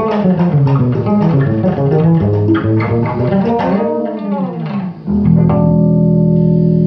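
Electric bass guitar played solo: a fast run of single plucked notes, then one note sliding up and back down. After a brief break about five seconds in, a chord of several notes rings and is held.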